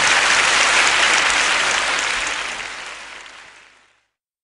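Audience applauding, fading out over the last couple of seconds into silence.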